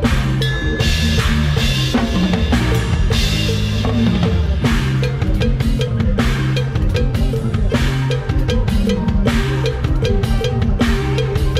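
A drum kit played with a lam sing band, with bass drum and snare hits over a steady bass line and other instruments.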